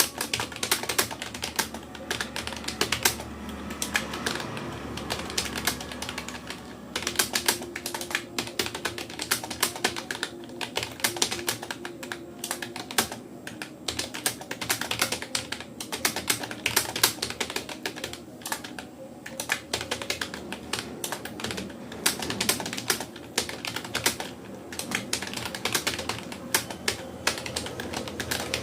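Fast touch typing on a Rapoo computer keyboard: a rapid, uneven run of key clicks with a few short pauses.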